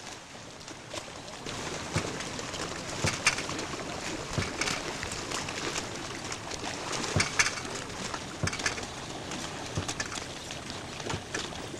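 Outdoor ambience at the edge of a lake: a steady hiss with about a dozen short sharp clicks and knocks scattered through it, the loudest about three seconds in and again about seven seconds in.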